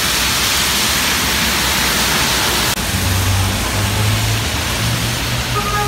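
Steady loud hiss of rain and traffic on a wet city street. The sound cuts about three seconds in to a spot beside the road, where a low, steady engine hum from nearby traffic runs under the hiss.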